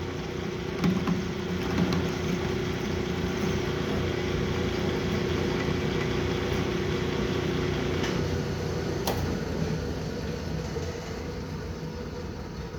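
Metal lathe running in a workshop: steady machine noise with a hum that cuts off with a click about nine seconds in, plus a few light clicks.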